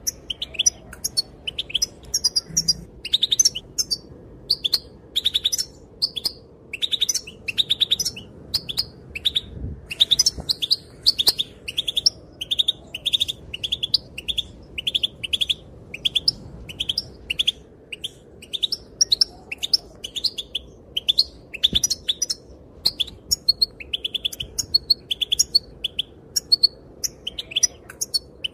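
Female European goldfinch calling: quick runs of short, high chirps, several a second, broken by a couple of brief pauses.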